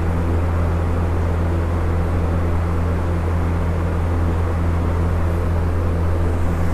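A steady low hum with an even rushing noise over it, unchanging throughout.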